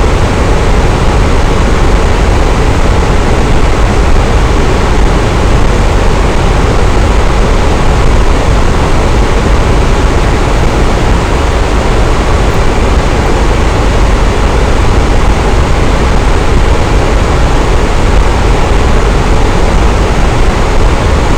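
Electric fan running steadily: a loud, even whoosh of moving air with a deep hum underneath.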